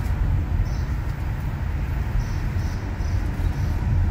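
Steady low rumble of road and engine noise inside a moving car, with a few faint, short high chirps during the middle seconds.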